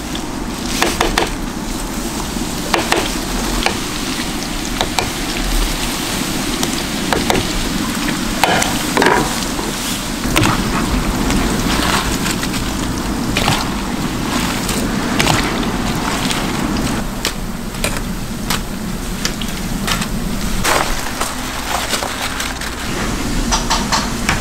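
Shop-kitchen cooking sounds: a steady sizzle of food frying, with frequent sharp clicks and knocks of utensils.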